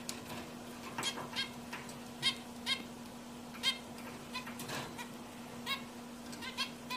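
Zebra finches giving short, sharp calls, about a dozen at irregular intervals, over a faint steady low hum.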